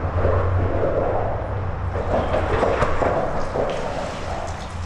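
Traffic crossing the concrete bridge overhead, heard from underneath as a steady low rumble that eases a little about two seconds in.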